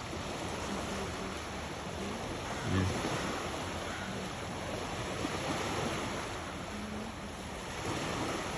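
Steady shoreline noise of wind and water, with wind on the microphone, and a brief low bump about three seconds in.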